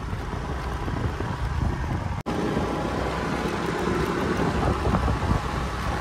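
Steady noise of a moving road vehicle, with wind rumbling on the microphone; the sound drops out for an instant about two seconds in.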